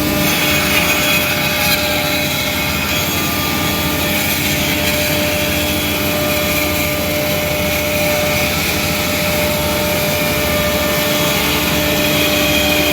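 CNC jigsaw machine running steadily, a constant mechanical hum with a steady tone over a dense noise.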